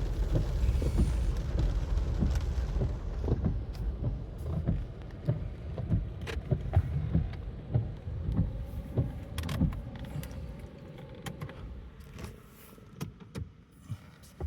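Low road and engine rumble inside a moving car, dying away over about ten seconds, with scattered sharp ticks and taps throughout.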